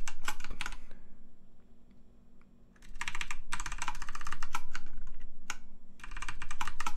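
Typing on a computer keyboard: quick runs of key clicks, a pause of about two seconds near the start, then more runs of typing.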